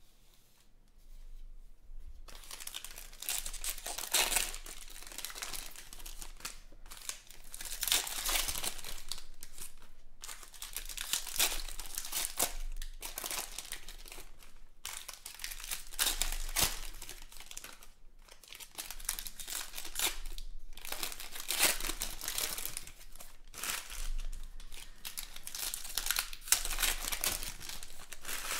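Foil trading-card pack wrappers crinkling and tearing as packs of 2020 Panini Prizm football cards are ripped open and the cards slid out, in repeated crackly stretches after a quieter first two seconds.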